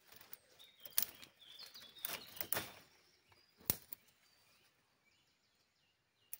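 A few sharp cracks of dry wood, a cluster of them about two seconds in and a single sharp one near four seconds, from twigs snapping or a campfire crackling. Birds chirp faintly in the background. It is almost quiet for the last couple of seconds.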